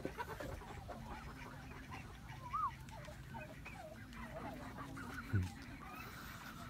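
A flock of domestic ducks and other farmyard fowl calling: many short, repeated calls. One call about two and a half seconds in stands out louder, and a short low thump comes about five seconds in.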